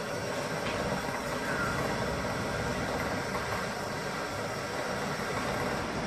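Steady background noise with one faint, short chirp about a second and a half in.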